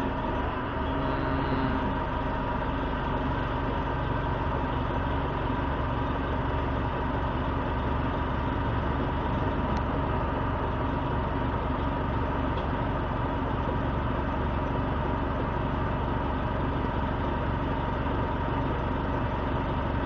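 1999 Orion V city bus engine idling steadily, heard from inside the passenger cabin while the bus stands still.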